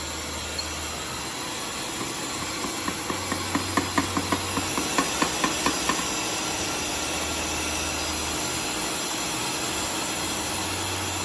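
Electric stand mixer running steadily, its beaters whisking brownie batter in a stainless steel bowl as flour is added. A quick run of light, regular taps sounds for a few seconds about three seconds in.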